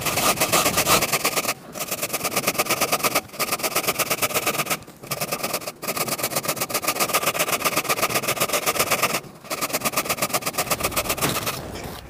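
A red beet grated on the fine side of a stainless steel box grater: rapid rasping strokes, several a second, in runs broken by brief pauses.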